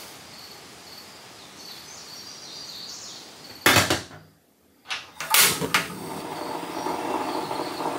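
Faint outdoor ambience with insects, then a metal kettle is set down on a portable butane stove with a sharp clank. After a moment of near silence the stove is lit with a sharp ignition and the burner runs with a steady rush.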